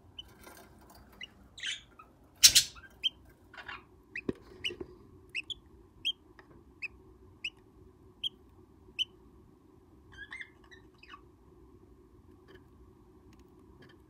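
Rustling and a sharp knock as a wooden nest box is handled and opened, followed by a string of short, high budgerigar chirps, about one every three-quarters of a second, that stops about nine seconds in.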